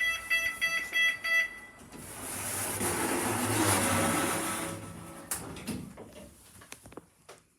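A passenger lift's quick run of about six electronic beeps, followed by a rush of noise that swells and fades over a few seconds, then a few light clicks.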